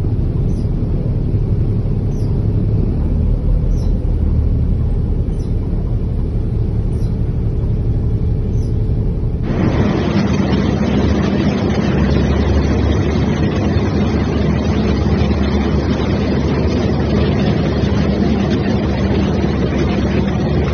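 A vehicle driving through deep floodwater: its engine rumbles under the rushing wash of water pushed aside by the vehicle. About nine and a half seconds in the sound changes abruptly to a fuller, steadier wash of water.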